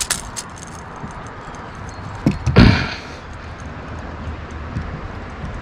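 Two quick knocks or splashes, a fraction of a second apart, about two and a half seconds in, over the steady rush of river water.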